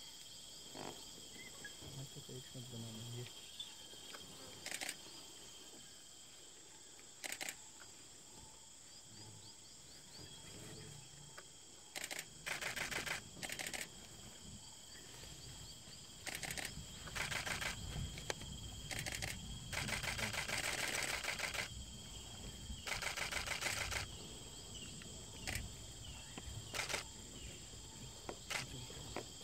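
Camera shutters firing in rapid bursts. A few single clicks come first, then from about twelve seconds in come repeated bursts, the longest about two seconds. Under it all is a steady high drone of insects.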